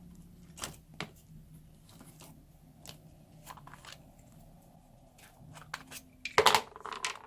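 Small plastic glue tubes being handled and opened: scattered light clicks and crinkles, with a louder burst of clattering and rustling about six and a half seconds in.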